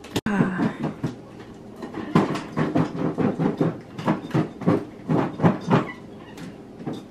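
Chopped vegetables shaken in a lidded glass mixing bowl: a rhythmic rattle of about three shakes a second that stops about six seconds in.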